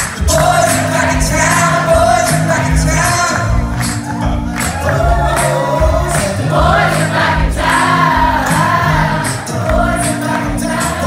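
All-male a cappella group singing live through a PA, heard from the audience: a lead voice carries the melody over sustained bass notes and backing harmonies, with a steady beat.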